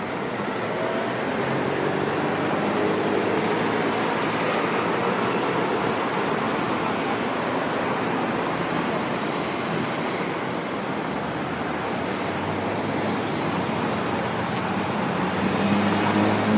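Road traffic at a city junction: a steady wash of passing vehicles. Near the end an engine grows louder and rises in pitch as a vehicle pulls away.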